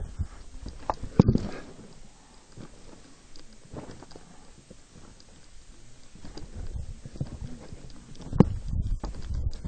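Footsteps on a loose gravel trail: irregular knocks and scuffs, heavier about a second in and again near the end, over a low rumble.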